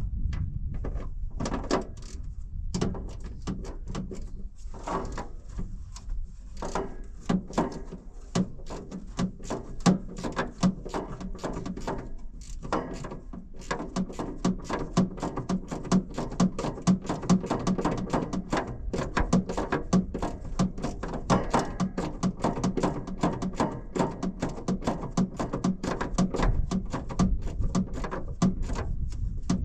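Quick clicking and knocking of a hand tool working a stuck fastener on a tractor's sheet-metal side panel. The clicks come sparser at first, then quick and steady through the second half.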